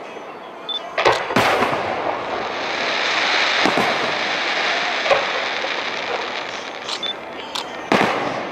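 Aerial firework shells bursting overhead: two sharp bangs close together about a second in, more reports at irregular intervals, and the loudest bangs near the end. A steady hiss fills the gaps between them.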